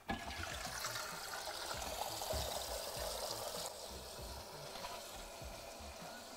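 Fluidmaster Air Gap 6000 fill valve filling a toilet cistern after the water supply is turned back on: a steady hiss of water running in, a little softer after about four seconds.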